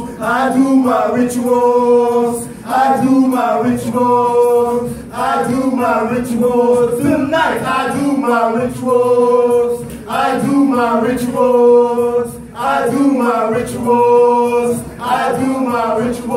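Male voices singing a cappella with no instruments: a short vocal phrase repeated about once a second over one steady held low note.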